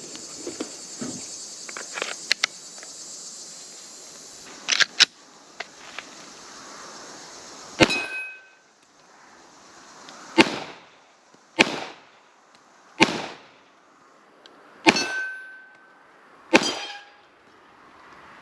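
Glock 21 .45 ACP pistol fired about seven times, one to two seconds apart, starting about five seconds in; some shots are followed by a short ringing tone. Small clicks and a faint hiss come before the first shot.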